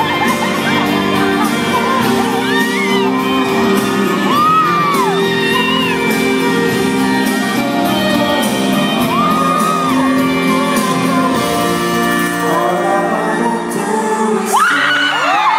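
Live pop ballad duet, a man and a woman singing over a band track, echoing in a large concert hall. Fans scream over the music a few times, with a louder burst of screaming near the end.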